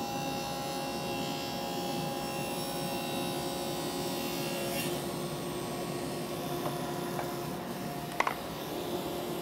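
Table saw running while a board is pushed at an angle across the barely raised blade, the teeth scraping sideways into the wood to cut a shallow cove pass; a steady hum with a light knock near the end.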